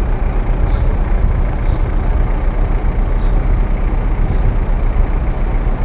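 Off-road SUV engine running at low speed, picked up by a camera mounted on the outside of the vehicle's body: a steady low noise with no change in pace.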